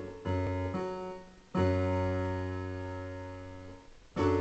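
Piano chords played slowly, with doubled bass notes in the left hand. One chord is struck about a quarter second in and another soon after. A longer chord rings and fades from about a second and a half in, and a fresh chord is struck just before the end.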